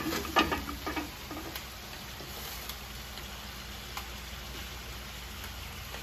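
Chicken piccata pan sauce simmering and sizzling in frying pans on a gas range, a steady hiss over a low hum. A few short clinks of pans and utensils come in the first second, and one more about four seconds in.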